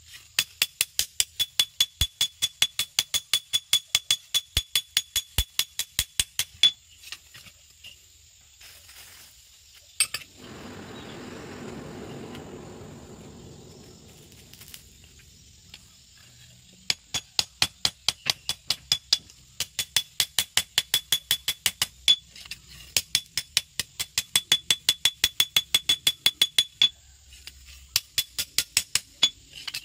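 Hand hammer forging a red-hot machete blade on a small steel anvil: rapid ringing strikes, about four or five a second, in two long runs. Between the runs there is a pause, then a few seconds of rushing noise that swells and fades.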